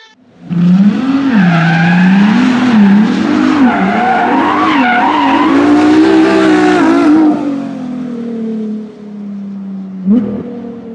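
Car engine revving hard while its tyres squeal and spin in a burnout, the engine note wavering up and down. After about seven seconds the squeal dies away and the engine eases to a steadier, quieter, slowly falling note, with one short blip of revs near the end.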